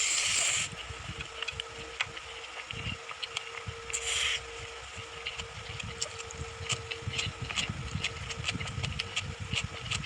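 Close-miked eating sounds: many small, irregular mouth clicks of chewing, with two short hissy bursts, one at the start and one about four seconds in, over a faint steady hum.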